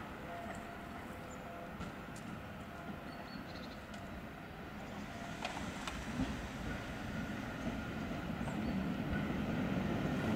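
Two coupled EN57 electric multiple units approaching on the track, a low rumble of wheels and running gear that grows steadily louder over the last few seconds.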